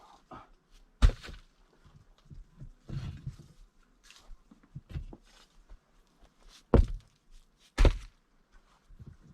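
Stones knocking against each other as they are handled and set in place on a stone stove being built. There is a sharp knock about a second in and two more near the end, with scraping and softer handling sounds between.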